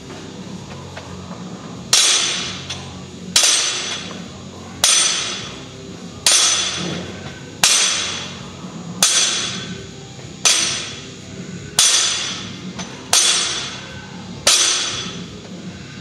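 Loaded barbell touched down on the floor ten times, about once every one and a half seconds, each touchdown a sharp clank of the weight plates that rings away: a set of ten deadlift repetitions.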